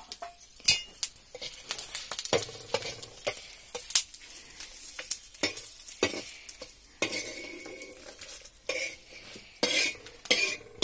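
A metal spoon scraping and clinking on a metal plate as red chillies are stirred and dry-roasted on it over a wood fire, with a light sizzle under many short sharp clicks.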